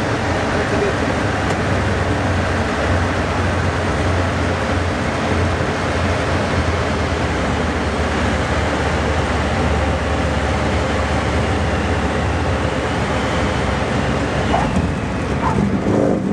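Cockpit noise of a 1946 Aeronca Champ in flight: the small air-cooled flat-four engine and propeller droning steadily with wind rushing past, heard from inside the cabin. Near the end the sound shifts a little.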